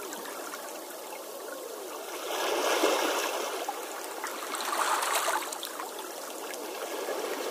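Running water trickling steadily, with two louder swells about two and a half and five seconds in.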